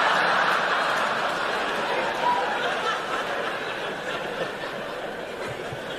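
Live audience laughing, loud at first and dying away gradually over several seconds.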